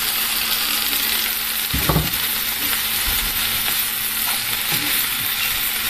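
Spinach, onion and tomato sizzling in a nonstick frying pan while a wooden spatula stirs them, with a single dull knock about two seconds in.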